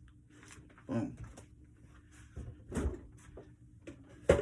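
A few separate knocks and clatters of kitchen items being handled and set down, over a faint steady low hum.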